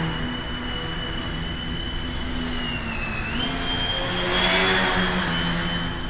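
The Hacker A10-15 brushless motor and propeller of a small RC electric airplane giving a steady high whine. About three seconds in the pitch dips as the throttle comes back, then it rises again, and it grows louder as the plane passes close overhead.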